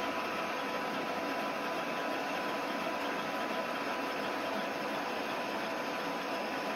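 Steady machine noise: an even running whir with a faint constant whine, unchanging throughout.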